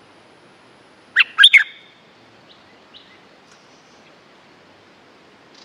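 Stripe-throated bulbul calling: a short, loud phrase of three quick notes about a second in, then a few faint single notes.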